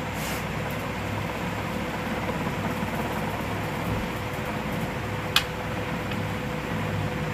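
Steady mechanical background hum and hiss with a low rumble, and a single sharp click about five seconds in while the fan's wires are being handled.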